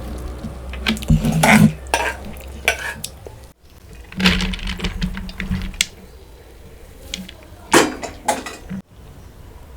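Spoon and dishes clinking and scraping, as food is stirred and served, in short pieces that cut off abruptly twice.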